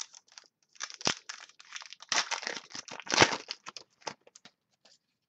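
Crinkling and rustling of plastic packaging as trading cards are handled, with irregular sharp crackles. The loudest crackles come about a second in and about three seconds in.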